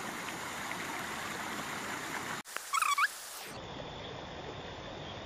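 Water of a man-made stream running steadily over rocks. About two and a half seconds in, the sound cuts to a quieter background, and a short rising animal call is heard once.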